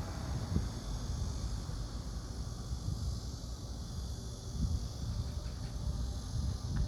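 Seaside wind blowing across the microphone in uneven low gusts, over a faint steady high hiss.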